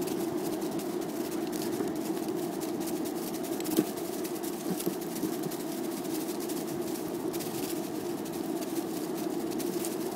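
Skateboard wheels rolling steadily over pavement at speed, a continuous rumble with fine ticking and one sharp knock about four seconds in.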